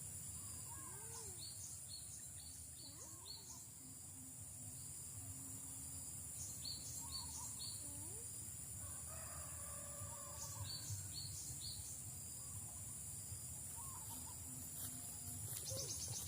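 Outdoor rural ambience: a steady high insect drone, bird calls in short runs of rapid notes repeating every few seconds, and a longer fowl-like call about nine seconds in.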